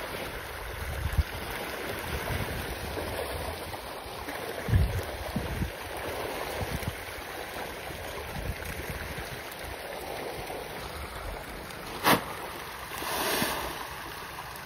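A crowd of farmed fish churning and splashing at a pond's surface as they feed, a steady watery sloshing. Near the end a single sharp click is followed by a short, louder burst of splashing.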